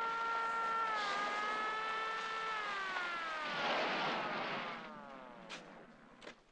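Police car siren holding one steady tone, then sliding down in pitch as a rush of car noise swells and passes, the whole fading away; a few sharp clicks near the end.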